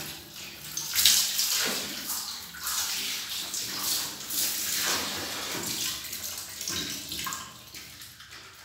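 Piglet eating from a pan of feed, with irregular wet slurping and splashing in uneven bursts.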